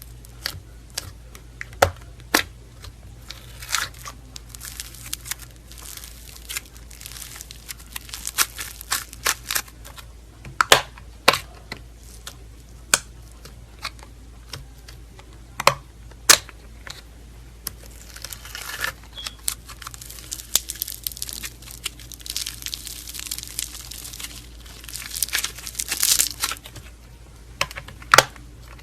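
Slime being squeezed and poked by hand, giving many sharp pops and clicks, with longer crackling, crinkly stretches in places.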